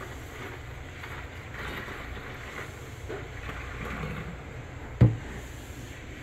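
Liquid sealer pouring from a plastic gallon jug through a funnel into a plastic pump-sprayer tank, a steady splashing pour, with one sharp thump about five seconds in.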